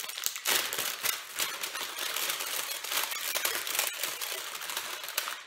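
Snack packaging crinkling and rustling as it is opened and handled, a dense run of small crackles.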